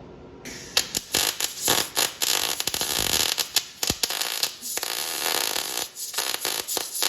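Wire-feed welder arc crackling and sputtering in bursts, with a few short pauses, as a steel engine mount is welded in. The welder's wire speed has just been turned up and it is now laying a proper weld.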